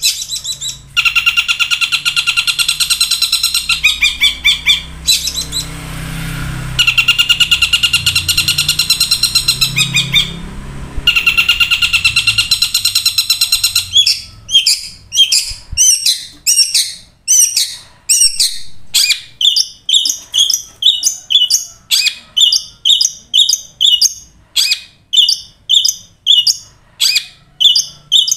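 Caged long-tailed shrike (cendet) calling: a fast, rattling chatter in long bursts, then from about halfway a run of separate sharp calls, roughly one and a half a second.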